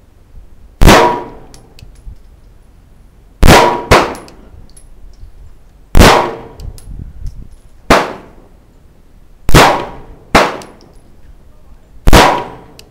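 Eight single 9mm pistol shots fired at an uneven pace, one to two and a half seconds apart, with two pairs about half a second apart. Each shot is a sharp crack followed by a short echoing tail.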